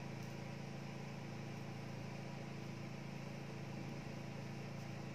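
A steady low hum, even and unchanging throughout.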